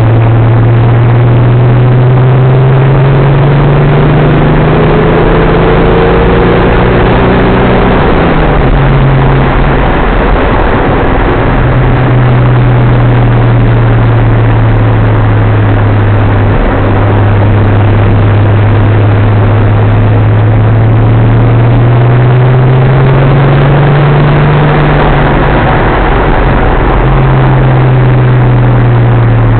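Datsun 280ZX Turbo's turbocharged 2.8-litre straight-six heard inside the cabin while cruising, a steady drone over road and wind noise. Its pitch rises slowly and falls again with the throttle, and it breaks off briefly about a third of the way in before settling back.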